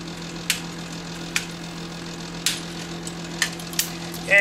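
Sharp clicks and snaps, about five in four seconds, as wiring and a circuit board are pulled loose from the neck of a CRT monitor's picture tube, over a steady low hum.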